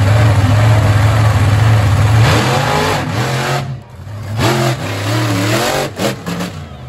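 Monster truck engines running loud and steady at the start line, then revving hard, the pitch climbing and falling several times as a truck launches off the line and lifts its front wheels.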